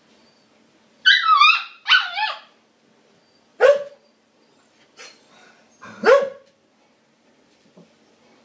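Siberian husky puppy vocalising: two high, wavering yowls about a second in, then two short, sharp barks a couple of seconds apart.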